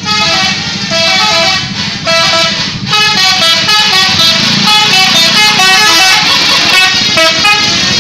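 Telolet horns on tour buses, the multi-tone musical horns of Indonesian buses, playing a fast tune of short stepped notes, with a brief break about three seconds in.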